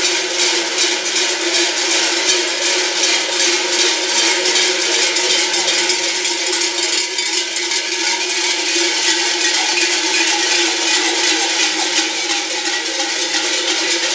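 Many large cowbells (chocas) worn on the belts of cigarrón carnival figures clanging together in a quick, steady rhythm as they march and hop.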